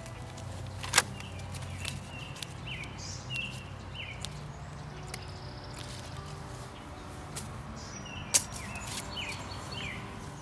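Birds chirping repeatedly in short calls over a steady outdoor background, with two sharp snips, one about a second in and one near the end, as scissors cut through plastic bird netting.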